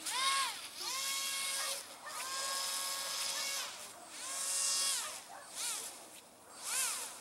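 Electric motor and propeller of an RC airboat on a 3S LiPo, whining up and down in pitch in about five throttle bursts, some held steady for a second or more before easing off.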